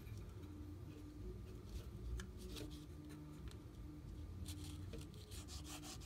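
Faint rubbing with scattered light ticks as a paper strip, used as a feeler gauge, is slid and worked against a 3D printer's aluminium gantry and frame while a hex key is handled at an adjustment screw.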